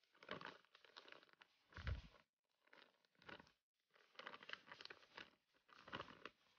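Thin plastic bag crinkling in irregular bursts as grated cassava is shaken and squeezed out of it into a bowl, with a louder burst and a low thud about two seconds in.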